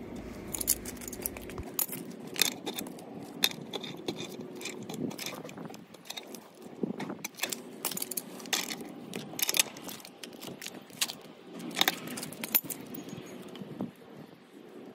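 Irregular metallic clinks and taps as black-iron gas pipe fittings and tools are handled.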